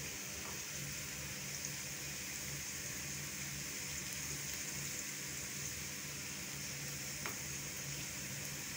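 Sliced onions sizzling steadily in hot oil in a frying pan, just starting to brown, stirred with a spatula that gives a couple of faint clicks against the pan.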